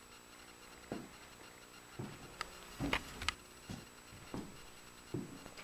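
Handling noise: roughly eight light knocks and clicks of small objects being picked up and set down on a workbench, the loudest about three seconds in.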